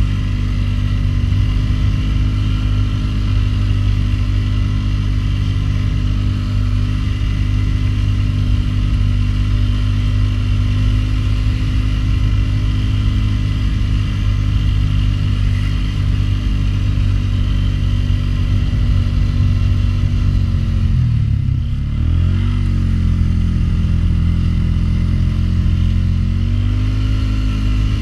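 Polaris Sportsman 500 HO ATV's single-cylinder four-stroke engine running steadily under load as it pushes a snow plow. About three quarters of the way through, the revs drop sharply and climb back within a couple of seconds.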